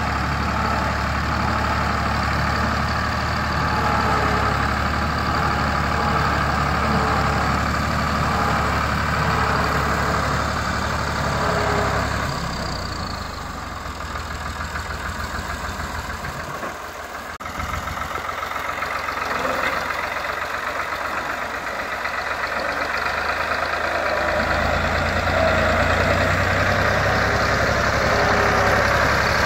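Ford 4610 tractor's three-cylinder diesel engine running under load while pulling a trailer heavily loaded with firewood. The engine note drops and is quieter through the middle, then comes back louder near the end.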